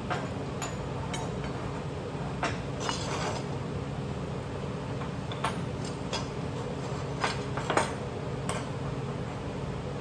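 Small steel latch parts clinking against each other and against metal: about ten scattered sharp clinks, the loudest near the end, over a steady low hum.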